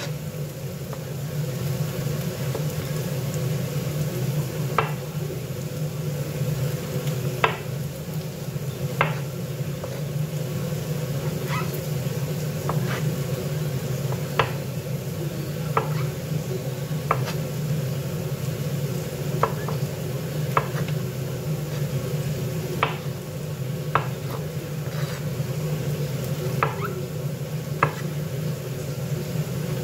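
Kitchen knife slicing mushrooms on a wooden cutting board: a short, sharp knock of the blade on the board about every second or so, at an uneven pace. Under it runs a steady low hum.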